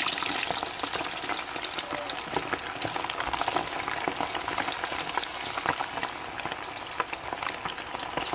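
Cornstarch-coated chicken wings deep-frying in vegetable oil in a stainless steel pot. The oil sizzles and bubbles steadily with dense crackling, early in the frying. A wooden spoon and tongs stir the wings and pull them apart in the oil.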